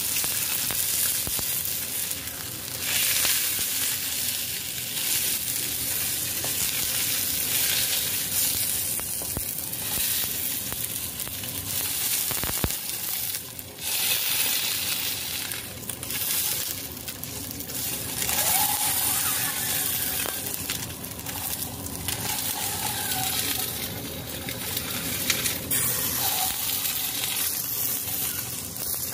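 Whole fish sizzling steadily in hot oil in a stainless steel wok as it browns, with a wooden spatula pressing and scraping it against the pan.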